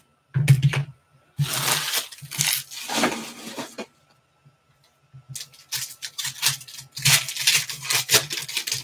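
A thump, then a trading-card pack's wrapper crinkling and tearing as it is ripped open. After that come quick rustles and clicks as the cards and wrapper are handled.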